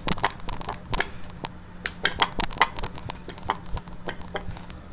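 Irregular light clicks and taps of hands pressing and stretching a thin disc of rolled dough on a rolling board, thinning out near the end, over a faint steady hum.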